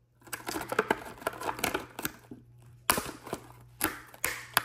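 Thin clear plastic display box handled and flexed in the hands, its walls crackling and clicking, with a few sharper snaps in the second half.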